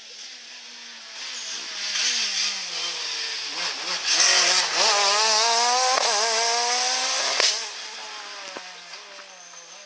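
Rally car engine approaching and then accelerating hard past, its pitch climbing steadily through one long pull. The engine note cuts off suddenly as the driver lifts, and the car fades away into the distance.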